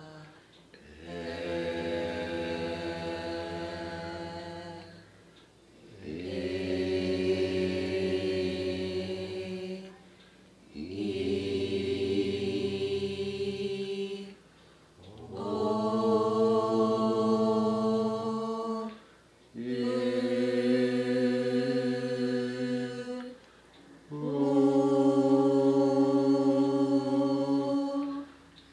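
Deep, sustained vocal chanting: six long held low tones, each about four seconds, separated by short pauses.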